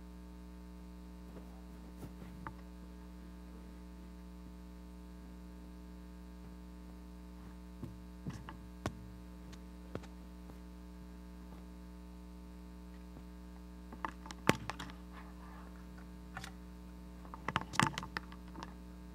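Steady electrical mains hum in the sound system, with scattered clicks and knocks from microphone handling as a handheld mic is picked up and hooked up. The loudest is a sharp knock about fourteen seconds in, and there is a cluster of clicks near the end.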